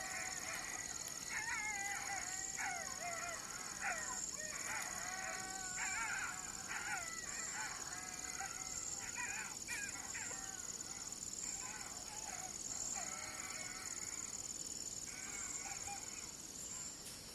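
A pack of golden jackals howling together: many overlapping wavering wails and yips, thinning and dying out about sixteen seconds in. A steady high chirring of crickets runs beneath.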